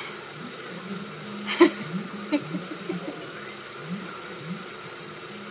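Mouth sounds of someone biting and sucking on a raw lime slice: one sharp smack about a second and a half in, then a few softer ones.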